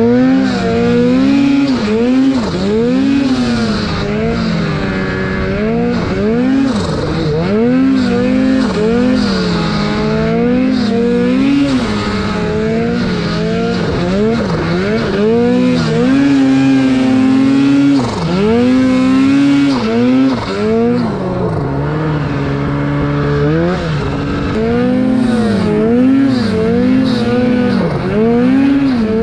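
Turbocharged 2019 Arctic Cat Mountain Cat 800 snowmobile's two-stroke twin engine, revving up and down every second or two as the sled is ridden through deep powder.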